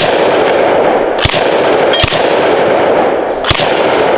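DDI LA-K12 Puma semi-automatic 12-gauge bullpup shotgun fired four times in quick, uneven succession, the action cycling each round without a hitch, with steel targets clanging from the hits.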